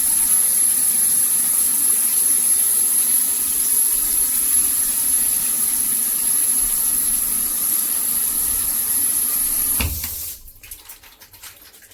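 Water spraying steadily from an 8-inch rain shower head, an even hiss of falling water. It cuts off suddenly about ten seconds in, leaving a quieter stretch with a few faint clicks.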